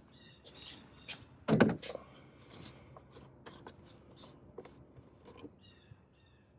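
Scattered clicks and knocks as a funnel is handled and fitted into the oil filler, with one louder thump about a second and a half in. An insect trills steadily and high-pitched in the background from about halfway.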